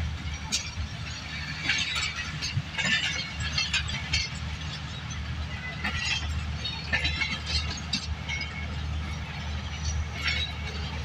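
Passenger train moving through the station: a steady low hum under irregular metallic clanks and squeals from the wheels and coaches.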